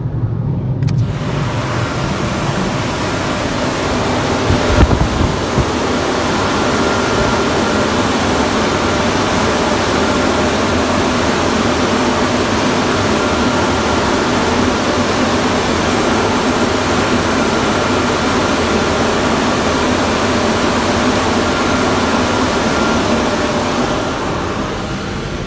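The air blowers of an automatic car wash's drying stage, blasting the car, heard from inside the cabin: a loud, steady rush of air that starts about a second in and eases off near the end.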